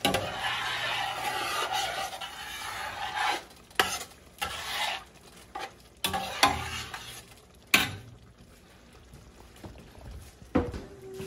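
Hot pot of frijoles puercos bubbling and sizzling for the first few seconds, then several sharp clinks and knocks of pot and utensils.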